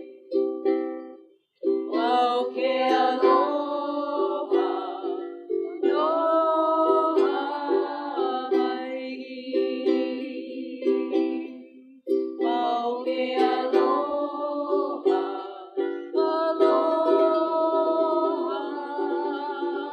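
A group of women singing together to a strummed ukulele. The music breaks off for a moment about a second and a half in and dips again about twelve seconds in.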